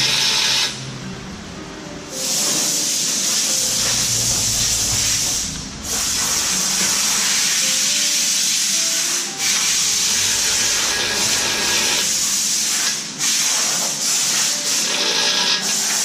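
Compressed air hissing from a pneumatic tool on a shop air hose, in long bursts of several seconds with brief pauses between them; the first burst cuts off under a second in and the next starts about two seconds in.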